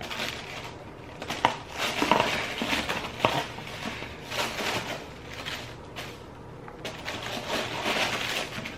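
Packaging being handled: irregular rustling and crinkling, with a few sharp clicks and knocks and a quieter stretch about halfway through.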